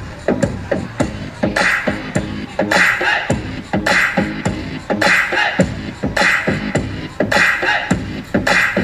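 Hip-hop beat for dancing: quick low kick-like hits with a hissing snare-like hit about once a second.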